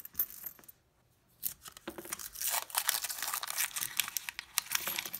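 Paper coin-roll wrapper being torn open and crinkled by hand, a dense papery rustling and tearing that starts about a second and a half in.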